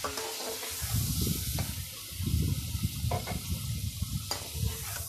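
Goat meat frying in oil in a pan with a steady sizzle, while a slotted spoon stirs and pushes the pieces around, with a few light clicks of the spoon. The meat is being browned with salt and ginger-garlic paste just added.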